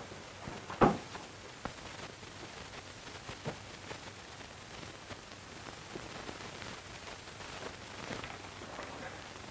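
Steady hiss and crackle of an old film soundtrack, with one loud, sharp knock about a second in and a few fainter clicks after it.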